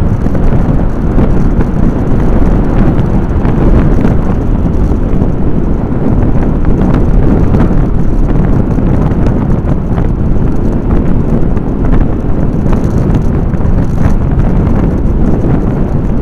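Loud wind buffeting on the microphone of a camera riding on a moving vehicle, a steady low rumble with road noise underneath.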